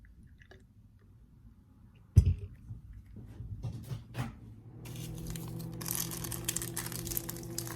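A sharp knock about two seconds in and a few light clicks, then from about five seconds a steady hissing rush of water pouring as a small measuring cup is filled, getting stronger a second later.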